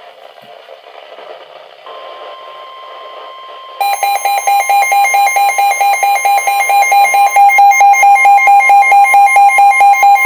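NOAA Weather Radio warning alarm tone, a steady single tone starting about two seconds in. About four seconds in it is joined by the weather radio receiver's own loud, rapid beeping alarm, about four beeps a second. The tone and beeping are the alert for an incoming severe thunderstorm warning, just before the voice message.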